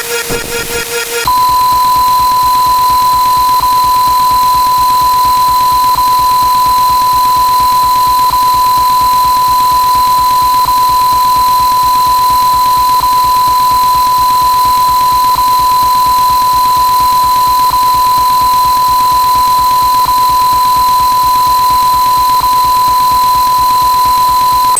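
Rapid electronic pulsing for about a second, then a loud, steady, high-pitched electronic beep tone held unbroken, with a faint tick about every two and a half seconds.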